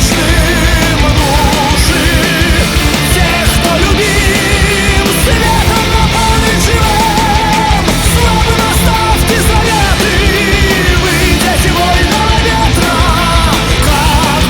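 Loud punk/heavy rock song: dense distorted band sound and drums under a singer holding wavering, vibrato notes.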